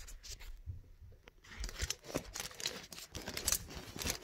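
Handling noise from a phone being moved by hand: irregular rustling, rubbing and small knocks, busiest in the second half.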